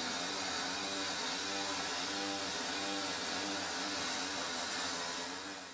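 Pneumatic carving hammer chiselling a marble block: a steady, even buzz that fades out near the end.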